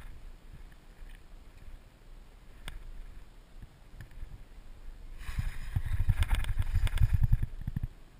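Handling noise on an action camera's waterproof housing: a single click, then about three seconds of muffled, rapid rumbling and knocking past the middle as the camera is moved.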